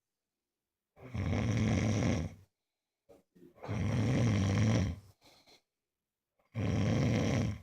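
A man snoring loudly in his sleep: three long snores, each about a second and a half, about two and a half seconds apart, with short faint sounds between them.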